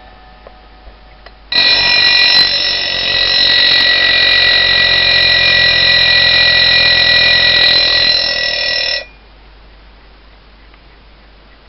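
Peter alarm clock's bell ringing continuously for about seven seconds. It starts about a second and a half in and cuts off suddenly. Faint ticking from the clock is heard before it.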